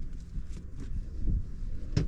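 Uneven low rumble of wind on the microphone, with a few light knocks and one sharp click near the end from equipment being handled.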